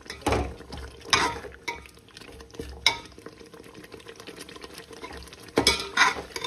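Metal slotted spoon stirring and scraping thick onion-and-spice masala in a metal pot as it is sautéed, in irregular strokes, the loudest scrapes about a second in and again near the end.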